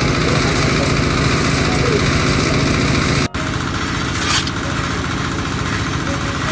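Engine of a small portable water well drilling rig running steadily. It cuts out for an instant about halfway through, then continues slightly quieter and duller.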